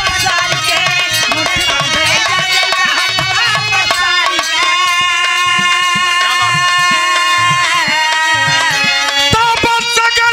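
Bhojpuri folk song accompaniment: harmonium holding long notes over hand-played dholak drum strokes, with a man singing drawn-out notes into the microphone.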